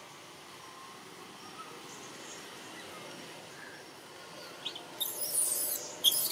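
Outdoor forest background with faint, thin bird chirps. Near the end come two short high squeaks, then about a second of loud, high-pitched hissing, a sharp click and a shorter hiss.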